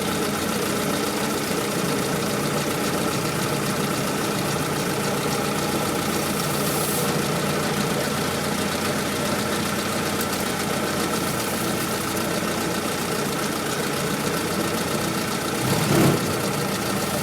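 1944 Willys MB's flathead four-cylinder engine idling steadily, with a thin, steady high whine above it. Near the end there is a brief louder low surge.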